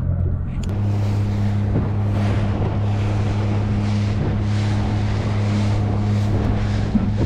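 A 30-horsepower four-stroke outboard motor running steadily with a low, even drone, with wind buffeting the microphone and water washing along the hull.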